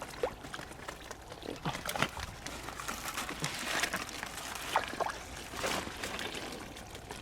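Shallow water sloshing and splashing as people wade through it, with scattered small splashes and plops and a couple of longer bouts of splashing in the middle.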